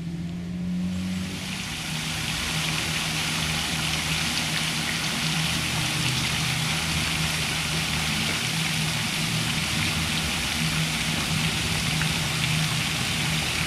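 Water from a tiered fountain splashing steadily into its basin, an even rushing hiss, over a low steady hum.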